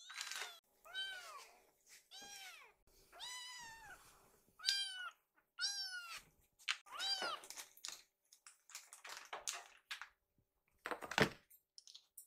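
Young kittens meowing, about six high, arching cries in quick succession, the hungry begging of kittens waiting for their food. From about eight seconds in come scattered light knocks and a louder thump near the end as they scramble about on a stool.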